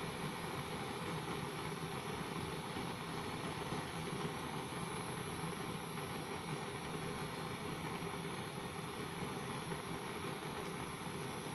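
Portable gas-cartridge blowtorch burning with a steady, continuous rushing hiss of the flame.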